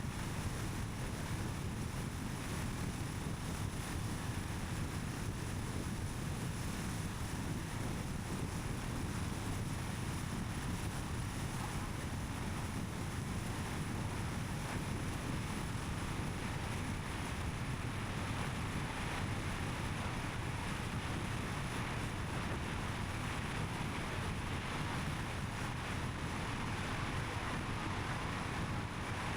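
Steady road noise of a car driving: tyre rumble and engine hum, even throughout with no sudden sounds.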